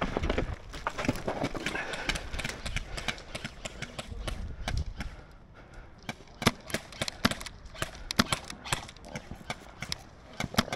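Airsoft gunfire and BB strikes around a wooden-pallet barricade: a patter of sharp, irregular clicks and cracks, several a second, with a few louder single cracks in the second half.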